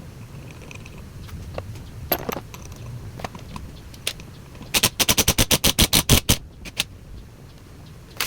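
Scattered sharp clicks and taps, then a rapid run of about fourteen sharp clicks, about nine a second, lasting a second and a half around the middle, over a faint low hum.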